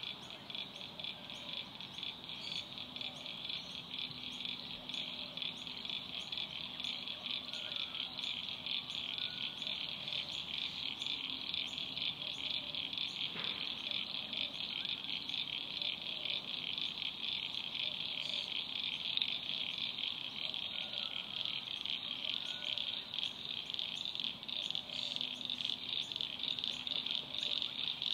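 Steady, high-pitched chorus of wetland insects: a dense, fast-pulsing trill. Faint low frog calls come and go underneath.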